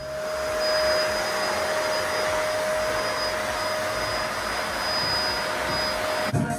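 Vacuum cleaner running steadily, a rushing air noise with a steady whine, stopping abruptly near the end.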